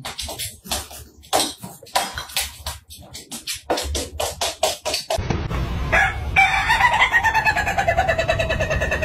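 Rooster crowing one long, drawn-out crow that starts about six seconds in and slowly falls in pitch. Before it, a music track with a quick clicking beat.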